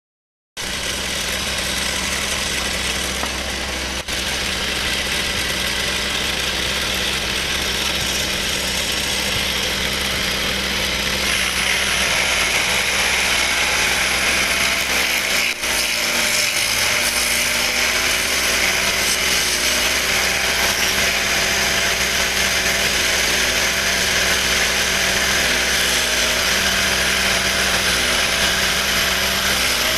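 Wood lathe running steadily while turning a furniture part, with a hiss of cutting that grows louder about a third of the way in.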